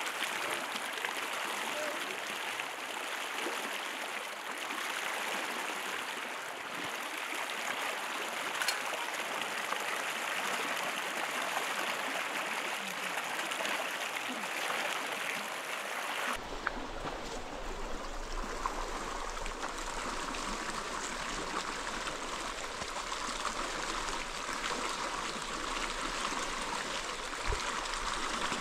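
Steady rushing of a fast, shallow river running over stones. About sixteen seconds in, the sound changes abruptly to a duller rush with less hiss.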